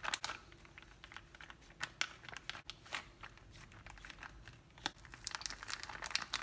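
Clear plastic zip-top freezer bag crinkling and crackling as hands press and smooth it flat to push the air out, the crackles growing busier near the end as the zipper is pinched closed.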